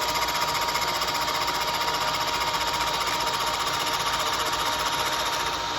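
Milling machine's cutter taking a cut along a 45-degree face on a flask end piece, a fast, steady rattle of the cutter teeth with a steady high whine. The knee is being driven down by a drill motor to feed the work past the cutter.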